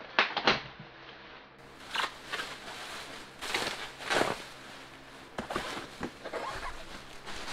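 Bubble wrap and plastic packaging crinkling and rustling in irregular bursts, with cardboard being handled, as a new exhaust pipe is unwrapped.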